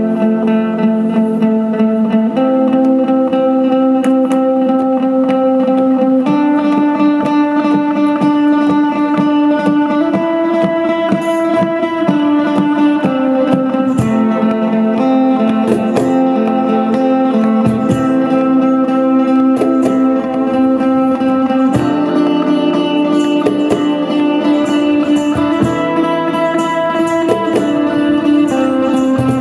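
Instrumental acoustic music: acoustic guitar playing chords and picked notes, with cajon knocks keeping time.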